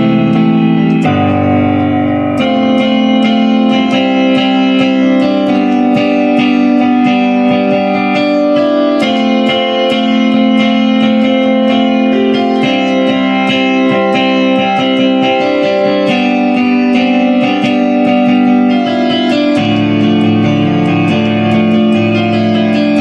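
Guitar playing: plucked notes over sustained chords, with the harmony changing every few seconds.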